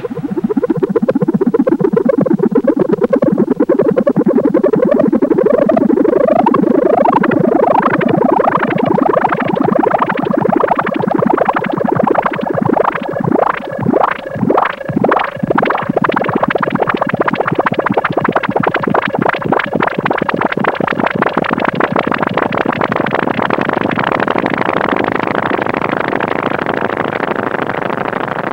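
Electronic synthesizer music: fast, repeated rising sweeps that climb higher over the first several seconds, then a stretch of separate pulsing notes midway, settling into a dense, steady pulsing texture.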